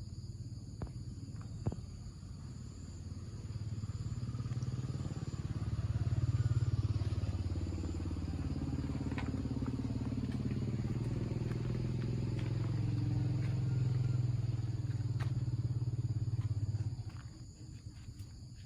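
A vehicle engine running, growing louder over the first few seconds, holding steady, then dropping away suddenly near the end.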